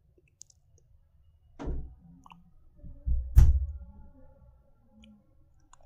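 Handling noise from hands working a small inductor coil on a work board: two dull thumps, the second louder, about two seconds apart, with a few light clicks.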